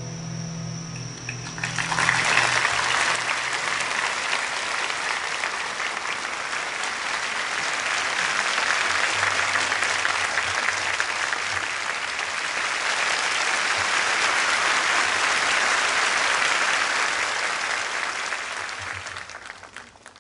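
The last chord of a classical guitar rings briefly, then an audience breaks into steady applause, which dies away near the end.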